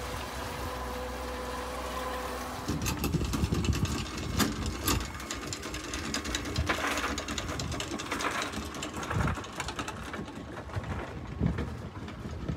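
Boat engine running with a steady low hum; from about three seconds in, gusty wind buffets the microphone, with scattered clicks and knocks.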